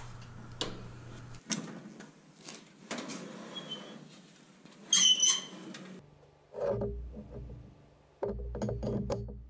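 Toaster oven being handled: scattered clicks and knocks as its glass door is opened and the wire rack pulled out, with a low hum that cuts off about a second and a half in. A single sharp metallic clink rings out about five seconds in. Background music with a steady beat comes in near the end.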